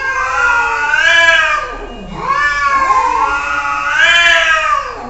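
Domestic cats caterwauling in a face-off: long, wavering yowls that rise and fall, the threat calls of a cat standoff. One drawn-out call ends about two seconds in, and after a short break a second starts, then slides down low near the end.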